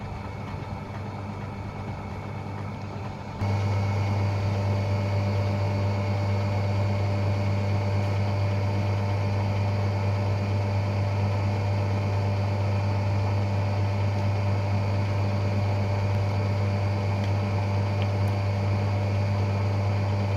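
Vintage Frigidaire Super DeLuxe Automatic 50 front-loading washing machine running empty, its induction motor giving a steady hum. About three seconds in it steps up into the spin and holds a louder, even hum: a long spin cycle.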